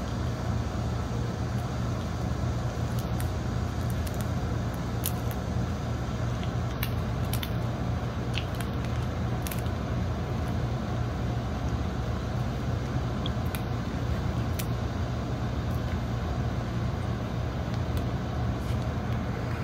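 Popcorn machine running with a steady motor hum, with scattered sharp clicks now and then.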